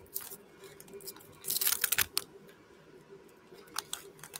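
Foil wrapper of a trading-card booster pack crinkling and tearing as it is peeled open by hand, with a dense burst of crackling about a second and a half in.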